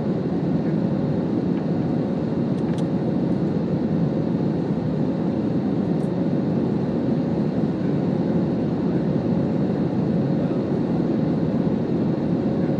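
Steady roar of engines and airflow inside a commercial airliner's cabin as the plane climbs after take-off, a low even rumble with a faint steady hum. A few faint ticks sound about a third and halfway through.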